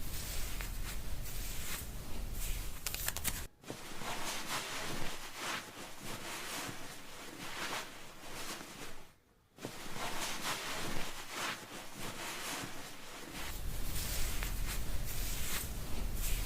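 Hands rubbing and scratching through hair and scalp during a hair wash: a crisp, scratchy rustling of many quick strokes, cutting out suddenly for a moment twice.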